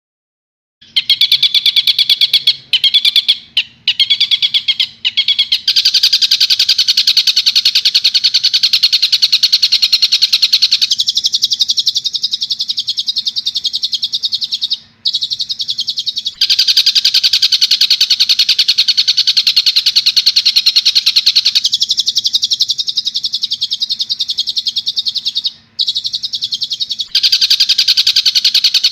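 Recorded tengkek buto bird call played as a masteran training track: a fast, continuous chattering trill of rapidly repeated high notes. It starts about a second in and runs in long phrases broken by brief pauses, over a faint steady hum.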